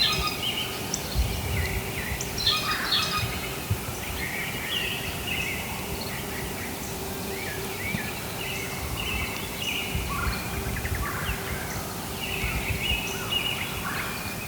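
Several songbirds chirping and singing, short overlapping calls and trills.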